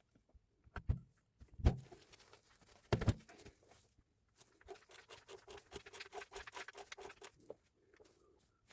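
Three sharp knocks, then a run of rapid clicking lasting about three seconds.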